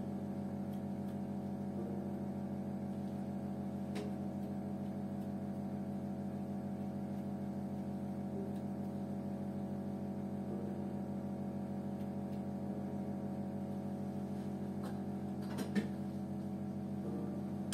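Electrical hum from a facial treatment machine, a steady chord of several tones. A few clicks come near the end and the hum cuts off as the machine is switched off.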